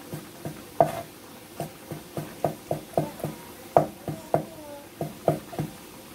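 Cleaver knocking on a wooden cutting board while slicing soaked dried mushroom into thin strips: quick, uneven chops, about three a second.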